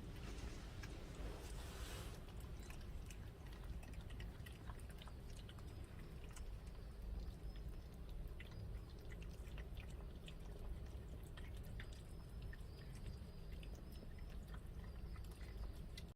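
Cats chewing food, a run of small irregular clicks and crunches over a steady low rumble.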